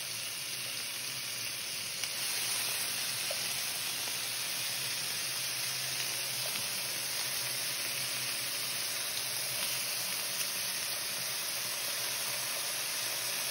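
Chopped raw bacon sizzling gently in a skillet as it starts to cook, the pan not yet very hot: a steady soft hiss that picks up a little about two seconds in.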